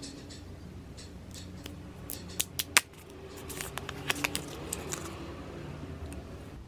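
Apple Pencil packaging being handled: the white cardboard tray and thin plastic and paper wrapping give a run of crisp clicks and crinkles. The loudest is a single sharp click near the middle.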